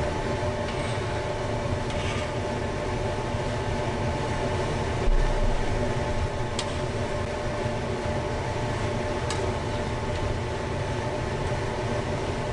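Steady mechanical hum with a low rumble and several fixed tones, like a kitchen appliance or fan running, with a low bump about five seconds in and a few faint clicks.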